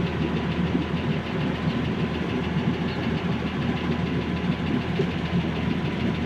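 Boat engine running steadily while cruising.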